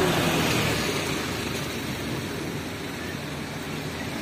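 Steady hissing street ambience of traffic on a wet road, with a faint low engine hum at times, easing a little in level.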